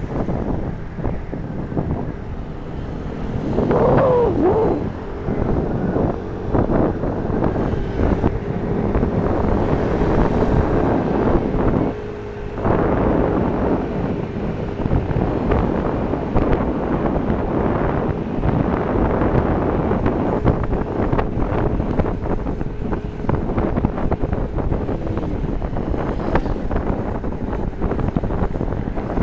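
Wind rushing over the microphone of a Yamaha Tricity three-wheeled scooter on the move, with its engine hum and road noise steady underneath. A short wavering sound comes about four seconds in.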